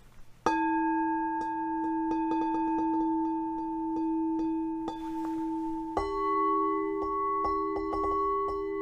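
Two singing bowls struck in turn. The first rings out about half a second in with a long steady tone and overtones. About six seconds in, a second, slightly higher-pitched bowl is struck, and the two ring together, with faint light clicks in between.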